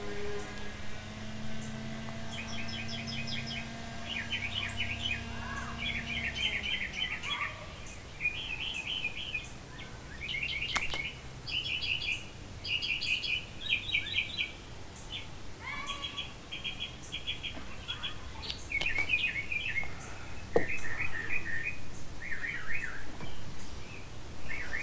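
Small birds chirping in quick clusters of short notes again and again. A low steady hum runs underneath for the first several seconds and then fades, and there are a few sharp clicks later on.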